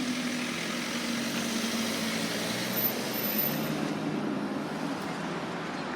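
Motor vehicle engines running steadily over a background hum, the low engine note shifting slightly partway through.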